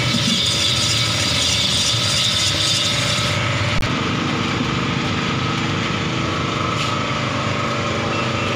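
Motor-driven cast-iron ice-shaving machine running with a steady hum, its blade shaving a block of ice with a hiss. The hiss drops away about three and a half seconds in, after a click, while the machine's hum carries on.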